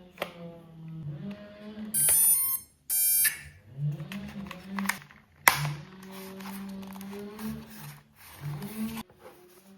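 Two loud, harsh electronic beeps about two and three seconds in, with a sharp click a few seconds later, over a low, wavering pitched sound.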